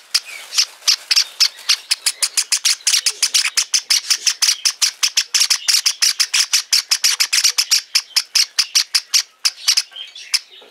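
Java sparrow chicks giving their begging calls, a rapid run of short, harsh cheeps at about five a second, thinning out near the end.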